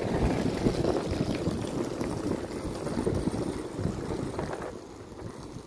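CP diesel multiple unit UDD 0466 running as it pulls away on the track, a steady rumbling noise that fades over the last second or so.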